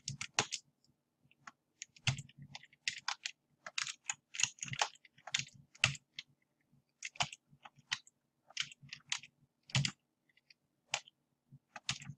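Computer keyboard keys and mouse buttons clicking irregularly, in single taps and quick clusters, as the 3D software is worked by hand.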